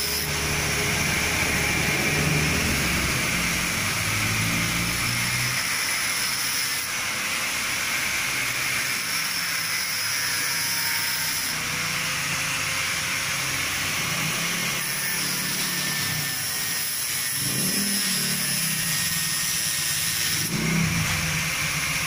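Handheld electric angle grinder running and grinding a small metal part, a steady high whine whose pitch shifts several times as the disc bites and eases off.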